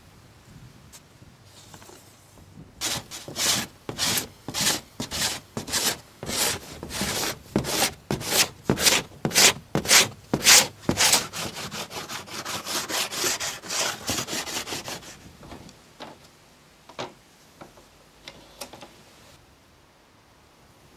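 A hand tool scraping back and forth over a wooden surfboard panel in quick, even strokes, about two and a half a second. The strokes grow softer and quicker after about eleven seconds, and a few light knocks on the wood follow.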